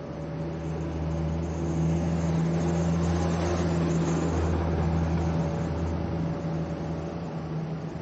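Engine of a Hong Kong public light bus (minibus) running steadily as it passes close by. It grows louder over the first two seconds, holds, then eases off in the last couple of seconds.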